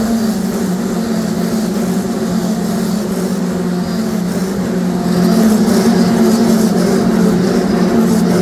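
Racing car engines running on the circuit: a steady, droning blend of engine notes that grows louder about five seconds in.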